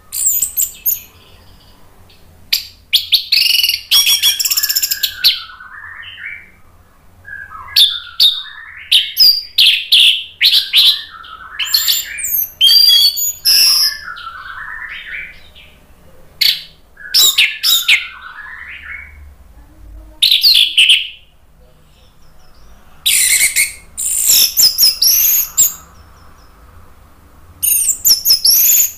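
An orange-headed thrush singing: a run of loud, varied phrases broken by short pauses. Some phrases are high and quick, others lower and sweeping.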